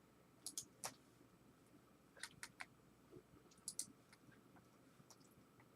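A few faint, sharp clicks in small clusters of two or three over near silence.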